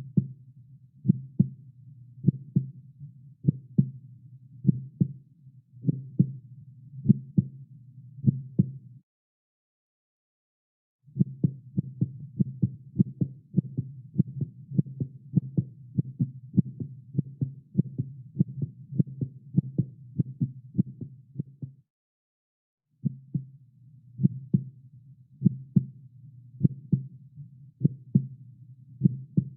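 Heartbeat sound effect: low, rhythmic thumps. A slow steady beat stops for about two seconds, then comes back much faster for about ten seconds. After another brief pause it returns to the slower pace.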